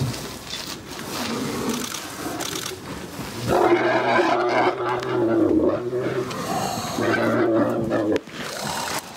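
African elephant giving a loud, low call about a third of the way in. The call breaks briefly, resumes, and cuts off sharply near the end.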